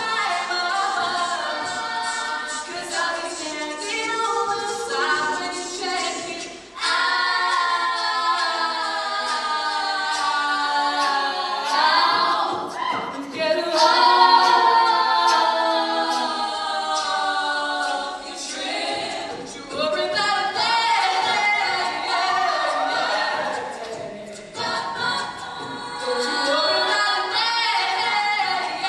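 All-female a cappella group singing through stage microphones, a lead voice over several backing voices, with no instruments.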